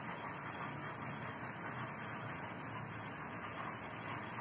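Faint steady rubbing of a cotton swab wiping over a circuit board to clean it.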